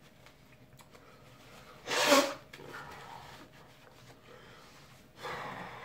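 A man's sudden, loud, short blast of breath through the nose and mouth about two seconds in, then near the end a long hard breath out through pursed lips. It is his reaction to the burn of freshly eaten habanero peppers.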